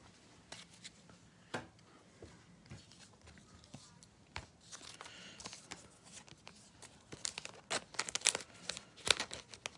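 Trading cards being handled at a table, with scattered light clicks and ticks, then a denser run of crinkling and rustling from packaging or card sleeves starting about seven seconds in.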